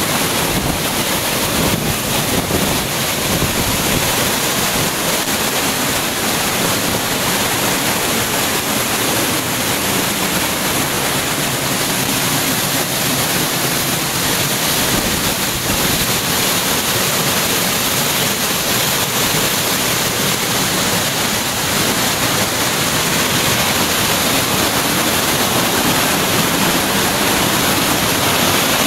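Loud, steady rush of a tall waterfall crashing into its plunge pool, heard from right beside the falling water.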